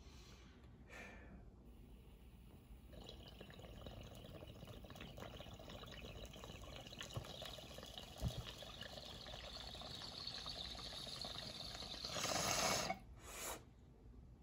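Water bubbling in a glass beaker bong as a long hit is drawn through it: a steady gurgling crackle that slowly grows louder. Near the end the slide is pulled and a louder rush of air clears the chamber for about a second, then stops.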